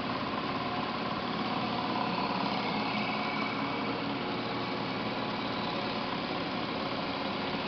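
TIP TIG hot-wire TIG welding arc on pipe, with the welding machine running: a steady, unbroken hiss and hum.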